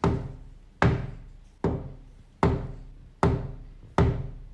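Heavy, slow knocking on a door: six loud, even knocks about one every 0.8 seconds, each booming and ringing out before the next.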